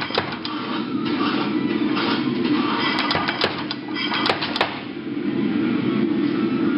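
Big Blu air power hammer striking a red-hot 1/2-inch square steel bar as it is drawn out to a flat taper, with a cluster of sharp blows about three seconds in over a steady hum.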